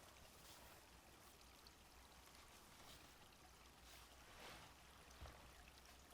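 Faint, steady sound of a small stream flowing, a soft continuous rush of water with gentle swells.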